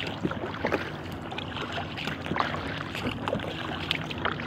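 Inflatable kayak being paddled on calm water: paddle blades dipping and water splashing and dripping in many small irregular splashes, over a low steady hum.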